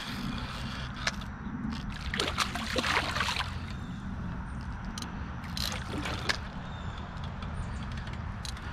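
Water splashing and sloshing as a hooked channel catfish thrashes at the surface beside the boat, in a few short bouts, the strongest about two to three and a half seconds in and another around six seconds, over a steady low rumble.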